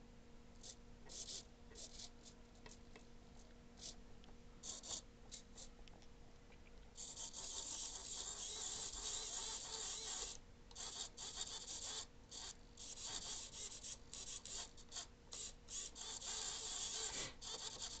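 Small blue hobby micro servos whirring in short, raspy bursts of gear noise as they are driven back and forth, with one longer run from about seven to ten seconds in.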